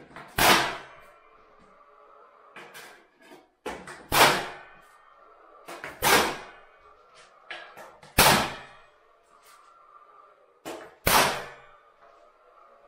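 Five loud, sharp knocks with a brief ring, roughly two seconds apart, with fainter knocks and handling noise between them.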